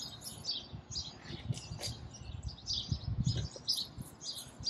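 Songbirds chirping in the background, a steady run of short, high chirps. There are low rumbles about a second and a half in and again around three seconds.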